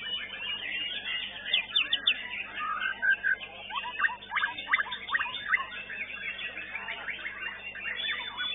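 White-rumped shama (murai batu) singing a rapid, varied song of whistles, trills and quick sweeping notes, with a run of sharp repeated strokes about four to five seconds in.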